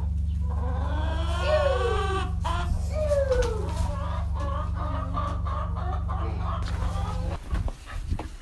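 Chickens clucking and calling, several calls falling in pitch, over a steady low hum that stops near the end.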